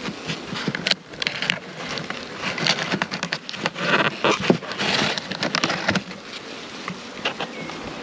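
Honeybees buzzing around the open nuc hives, mixed with irregular rustles and clicks as a cardboard queen shipping box and a plastic queen cage are handled.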